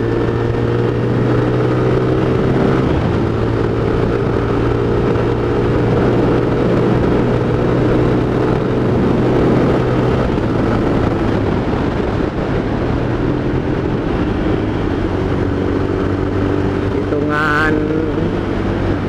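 Honda Tiger Revo's 200 cc single-cylinder four-stroke engine running under way, its pitch drifting up and down as the throttle is worked.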